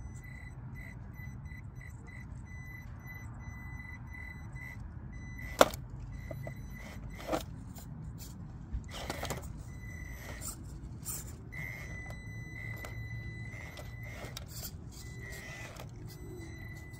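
Traxxas TRX-4M 1/18 mini crawler, fitted with Injora underdrive gears, crawling over rocks. Its motor and gears give a high whine that comes in quick short pulses as the throttle is feathered, then holds steady for a couple of seconds near the end. Knocks and scrapes of tyres and chassis on rock break in, the loudest a sharp knock about five and a half seconds in.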